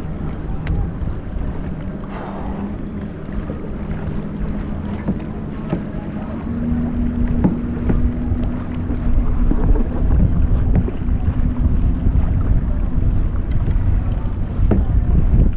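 Wind buffeting the microphone over water lapping against a sit-on-top kayak, with the splashes of a double-bladed paddle dipping in. A steady low hum runs for a few seconds midway.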